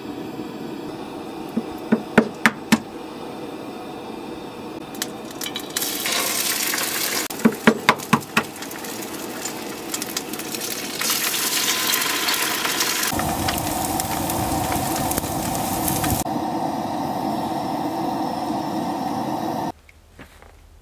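A frying pan sizzling on a propane camp stove, with a metal utensil tapping and scraping the pan; the sizzle grows much louder about six seconds in. Near the end it cuts off abruptly to quiet.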